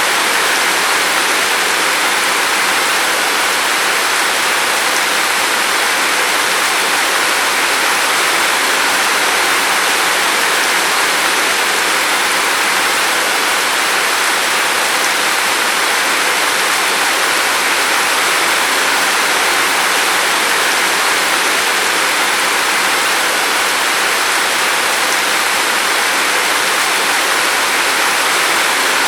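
Steady rain falling, a continuous even hiss of drops with no breaks.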